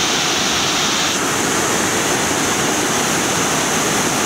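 Fast-flowing river water rushing over rocks, a loud steady rush with no let-up.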